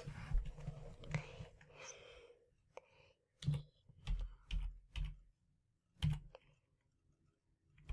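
Typing on a computer keyboard: separate keystrokes, irregular and spaced out, starting about three seconds in.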